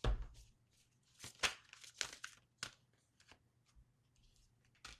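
Oracle cards being shuffled and drawn by hand: a soft knock at the start, then a string of quick, papery slides and flicks.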